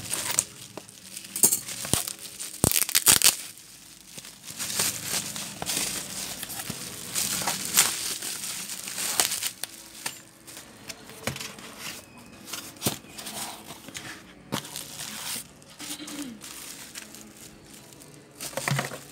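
Bubble wrap around a replacement laptop keyboard crinkling and rustling in irregular bursts as it is handled, with a few sharp clicks early on.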